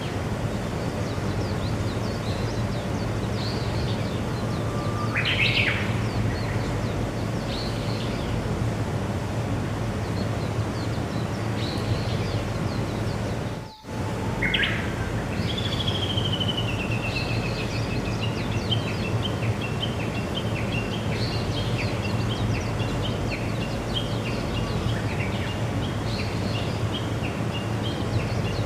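Wild birds calling over a steady outdoor background noise: short chirps, a rising call, then a long falling whistle followed by a run of quick repeated notes. The sound drops out briefly about halfway through.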